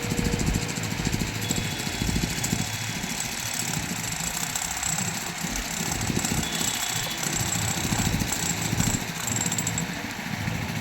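Heavy diesel engine of earthmoving or farm machinery running at a low, steady, pulsing beat.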